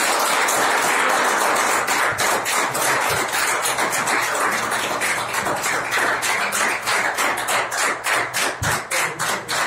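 A small group applauding in a small room: dense clapping that turns into an even, rhythmic clapping of about three claps a second toward the end.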